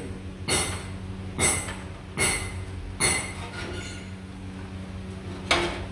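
Sharp metal-on-metal strikes with a bright ring, five of them: four at a steady pace less than a second apart, then one more after a pause. A steady low hum runs underneath.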